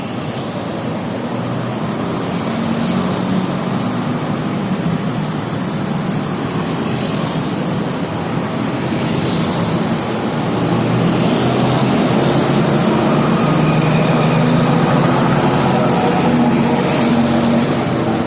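Road traffic: motor vehicles running past with a steady engine hum, louder from about halfway through.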